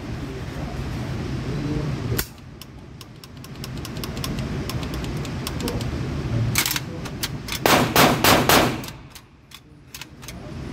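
Gunfire on an indoor shooting range. A single sharp shot comes about two seconds in, then scattered fainter shots, then a quick string of loud shots around eight seconds in.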